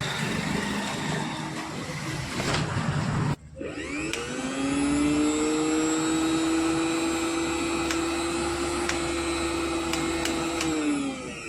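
Mixer grinder's electric motor running at high speed with a noisy whirr. It cuts out abruptly about three seconds in, then spins back up to a steady whine and winds down near the end.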